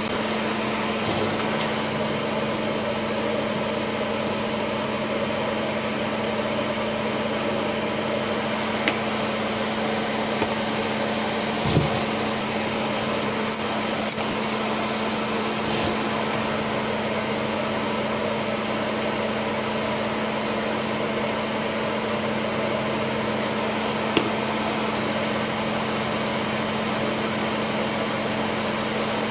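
Steady electric hum of a small fan motor running, with a few faint clicks and taps.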